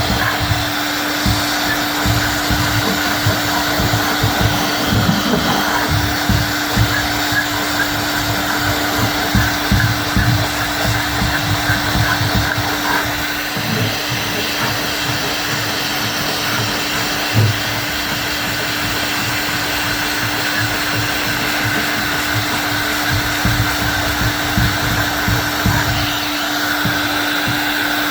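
A hand-held electric tool's motor running steadily with a constant hum, over irregular low rubbing and knocking, while old varnish is stripped from mahogany boards.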